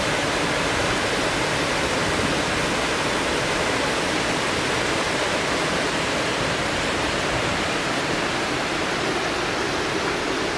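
Water spilling over a river weir and churning in the pool below: a steady, unbroken rushing.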